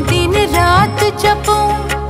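Hindi devotional song, a Durga mata bhajan: a woman's voice singing an ornamented melody over percussion and instrumental accompaniment.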